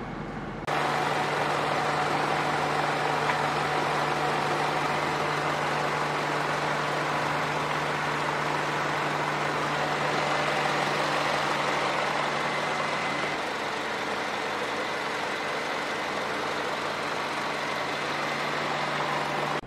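A 1997 Mitsubishi Lancer's engine idling steadily, starting abruptly just under a second in. A steady low hum runs under it and drops out about two-thirds of the way through, leaving the sound slightly quieter.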